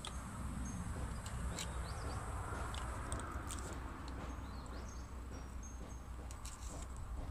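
Small knife blade carving into a peeled white oak branch: a scatter of short scrapes and clicks from the cutting strokes, over a low steady rumble. Faint high chirps, likely birds, come in briefly a few times.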